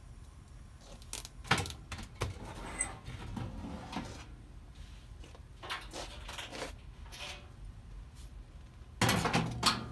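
Sheet-metal blower assembly scraping and knocking against the air handler cabinet as it is slid out, with scattered bumps and a louder clatter about nine seconds in.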